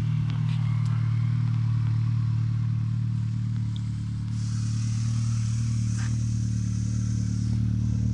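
1994 Rover 220 Turbo Coupe's engine running at a steady, even speed with no revving. A faint high hiss joins in for about three seconds in the middle.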